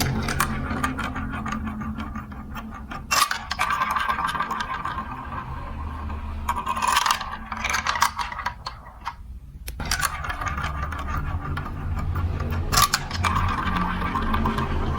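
Marbles rolling and clattering along a plastic building-block marble run, a continuous rolling sound with frequent sharp clicks and a few louder clacks.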